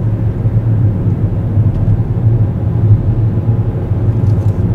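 A car driving along at a steady pace: an even, low rumble of engine and road noise with no change in pitch.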